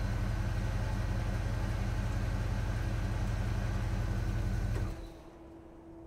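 Remote-control toy excavator running with a steady mechanical hum, which cuts off about five seconds in.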